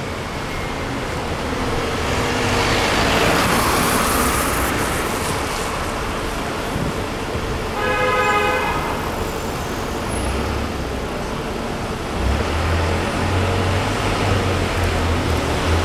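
City street traffic noise with cars passing. A car horn sounds once, briefly, about eight seconds in, and a low engine hum sets in near the end.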